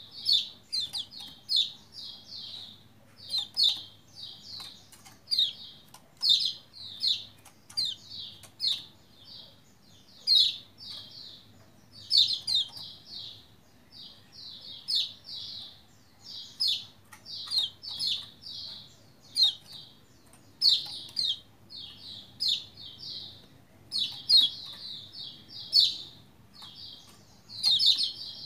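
Caged pleci lombok (kecial kuning) white-eye in full song: quick phrases of high chirps, one after another about every second.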